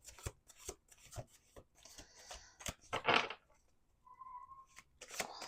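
A deck of tarot cards being shuffled by hand: soft rustles with light card taps and snaps, and one louder swish of cards sliding about three seconds in. A short faint steady tone sounds about four seconds in.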